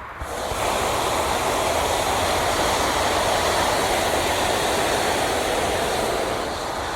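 Hot-air balloon's propane burner firing: a steady rushing blast of flame that starts just after the beginning and eases slightly near the end.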